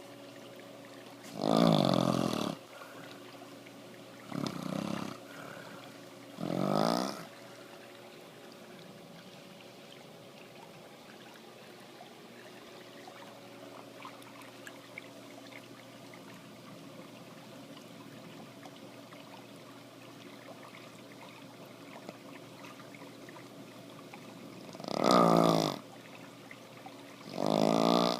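Snoring: three snores in the first seven seconds, a pause of nearly twenty seconds, then two more snores near the end. A faint steady hum lies underneath.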